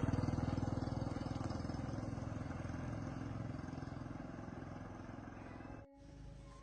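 An engine running with a fast, even beat. It starts abruptly and loud, fades slowly, and cuts off sharply near the end.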